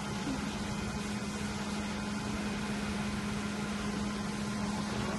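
Steady machine hum: a constant low drone over an even airy hiss, like electrical fans running.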